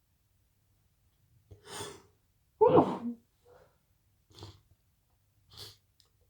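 A person with the sniffles draws a breath in, sneezes once loudly about two and a half seconds in, then sniffs twice.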